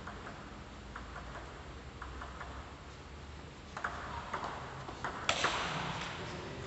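Table tennis rally: the ball clicking off the paddles and the table, a few light ticks at first, then quicker and harder hits. The loudest crack comes about five seconds in, followed by a brief rush of noise.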